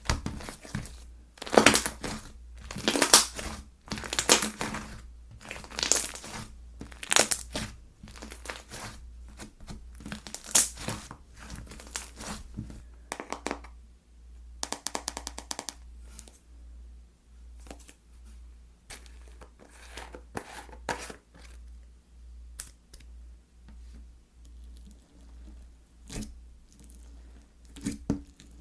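Slime being stretched, folded and pressed by hand, crackling and crinkling; the crackles come thick and loud for the first twelve seconds or so, then thin out, with a couple of louder bursts near the end.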